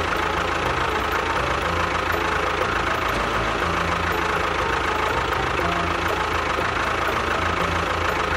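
Tractor engine running steadily with an uneven low beat.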